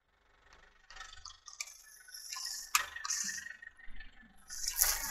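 Plastic drink bottle crushed under a car tyre: the plastic crackles and clicks as it gives way, with a sharp crack near the middle, while liquid seeps out. Near the end the bottle bursts and liquid sprays out with a hiss.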